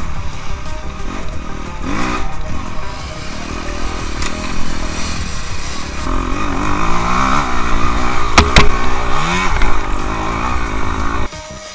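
Off-road motorcycle engines revving up and down as dirt bikes climb through woodland, the pitch repeatedly rising and falling with the throttle. The engine sound cuts off abruptly near the end.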